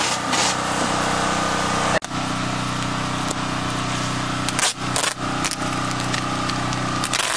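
An engine runs steadily throughout, with a few short rips of packing tape being pulled from the roll and pressed onto plastic wrap in the second half.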